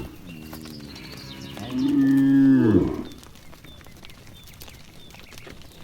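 Cattle mooing: a fainter drawn-out low at the start, then one loud moo about two seconds in, lasting about a second and dropping in pitch as it ends.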